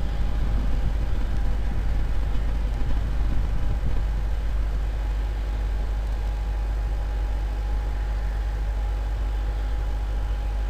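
Falcon 9 rocket's engines heard as a distant low rumble with an irregular crackle during first-stage ascent. The rumble eases about four to five seconds in, leaving a steady low hum with a faint steady tone.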